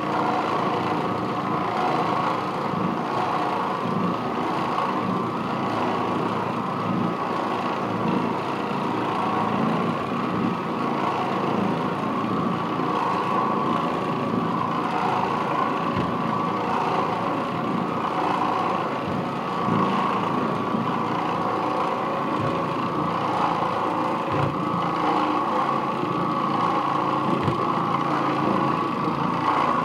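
Oreck Orbiter orbital floor machine running steadily, its bonnet pad scrubbing over carpet.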